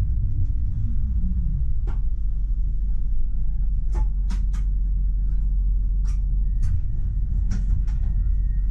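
Tram running along the track, heard from the driver's cab: a steady low rumble with a whine that falls in pitch in the first second and a half. Scattered sharp clicks and knocks come through, and a faint high steady tone joins in past the middle.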